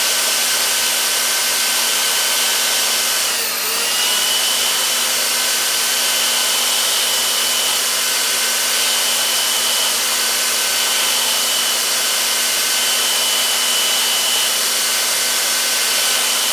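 Belt sander with an 80-grit belt running steadily while a steel countersink bit is ground against it to resharpen its blunted point. The motor's pitch dips briefly and recovers about three and a half seconds in.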